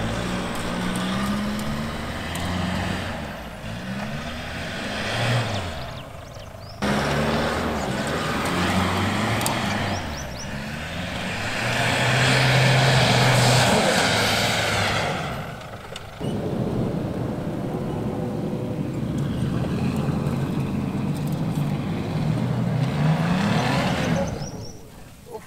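Off-road SUV engines revving hard under load on a steep sandy climb, the revs rising and falling. The sound changes abruptly about 7 and 16 seconds in. A Ford Endeavour climbs first, then a Toyota Prado V6 near the end, its wheels spinning and spraying sand.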